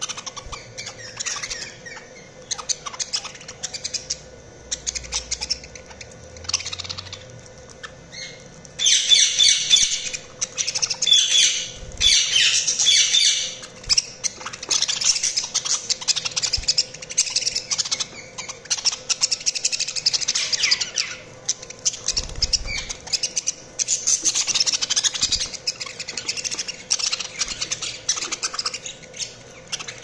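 A flock of budgerigars chattering and chirping in high, rapid calls, growing louder and busier from about nine seconds in.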